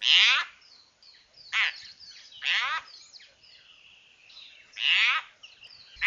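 A wild animal giving four short, harsh rasping calls spaced irregularly a second or more apart, with faint higher chirps in between.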